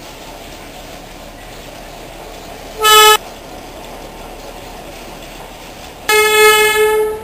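Darjeeling Himalayan Railway toy train's horn sounding twice, a short blast about three seconds in and a longer one near the end, each on one steady pitch, over the steady noise of the running train.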